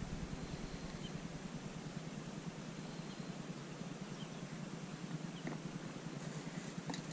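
Quiet outdoor river ambience: a steady faint hiss with a few brief high chirps or ticks, and a sharper click near the end.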